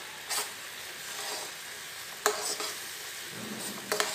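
Poha simmering in bubbling jaggery syrup in a nonstick pan, with a steady sizzle, stirred with a steel spoon that scrapes and taps against the pan a few times. The syrup is boiling down so its water evaporates off.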